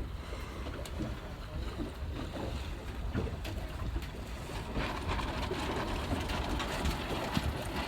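Wind buffeting the microphone, with water splashing and lapping against a boat's hull under way.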